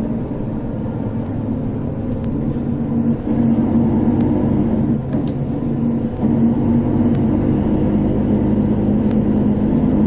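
Tour bus engine and road noise heard from inside the moving bus: a steady low drone with a hum, a little louder from about three seconds in.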